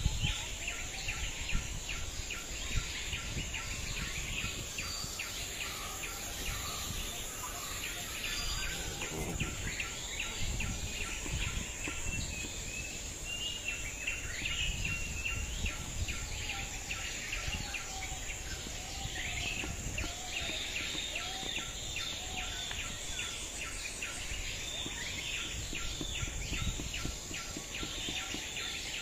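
Rural outdoor ambience: a steady high insect buzz and scattered bird calls, over a low rumble of wind on the microphone, with many light taps and knocks.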